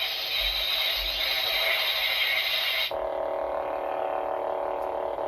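Toy lightsaber's sound-effect module playing through its small speaker: a steady hissing effect for about three seconds, then an abrupt switch to the steady buzzing lightsaber hum.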